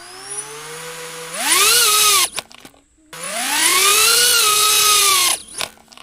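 DJI Avata 2 FPV drone's motors whining in turtle mode, spinning the propellers to flip the upside-down drone back over. There are two loud bursts: the first climbs and cuts off about two seconds in, and the second rises and falls in pitch before stopping near the end.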